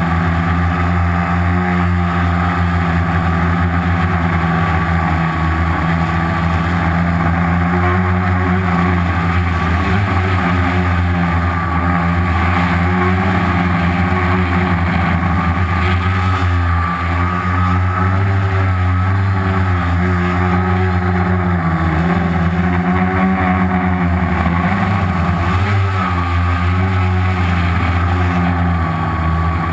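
Homemade quadcopter's four Turnigy 2217 1050kv brushless outrunner motors spinning 10x4.5 slow-fly propellers, heard close from on board. A loud, steady multi-pitched hum whose pitch wavers up and down as the motors speed up and slow down in flight.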